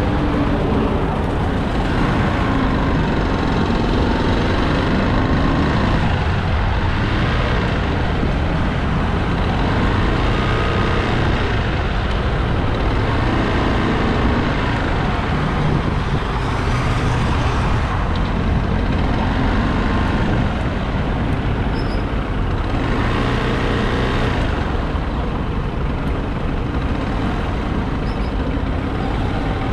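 Motorcycle engine running at low speed through slow, heavy road traffic, mixed with the rumble of surrounding trucks and cars. The sound is steady and loud, with the engine note rising and falling slightly as the bike creeps along.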